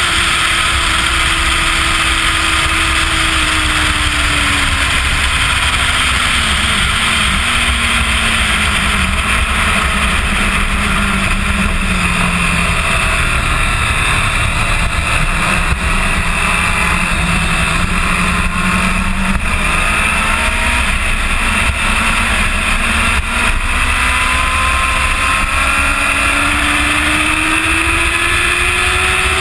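2005 Kawasaki ZX-10R's inline-four engine running at speed, heard from its own fairing camera under a heavy rush of wind. The engine note falls over the first few seconds, holds low through the middle, then climbs again near the end.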